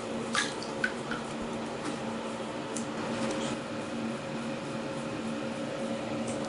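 A steady low electrical hum in a room, with a few faint short ticks in the first second or so.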